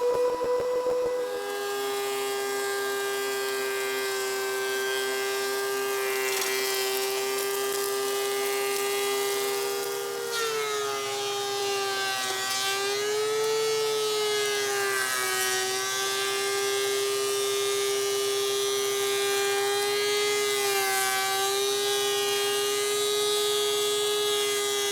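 DeWalt 735X thickness planer running with a steady, high-pitched motor whine as boards are fed through. The pitch drops a little about a second in, then dips and wavers several times from about ten seconds in as the cutterhead takes load.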